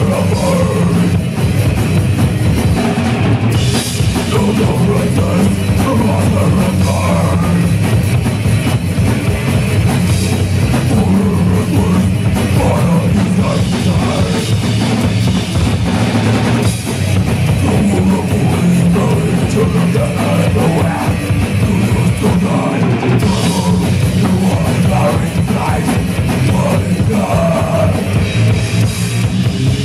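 Metal band playing live: distorted electric guitars and a drum kit, loud and continuous, recorded from the audience in a small club.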